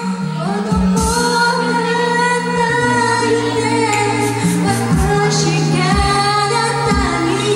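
A woman singing a pop ballad into a handheld microphone over backing music with a steady bass line and a light drum beat.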